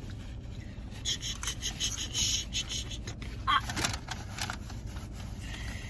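Scraping and rustling of takeout food containers while eating, over the steady low rumble of a car's interior. A few short sharp noises come near the middle.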